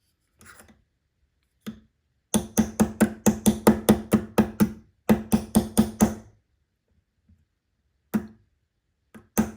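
Small hammer tapping a pin-pushing tool to drive a friction pin into a watch bracelet: a few single taps, then two fast runs of about five ringing taps a second in the middle, then a few more taps near the end. The taps seat the pin, one side of it going fully in.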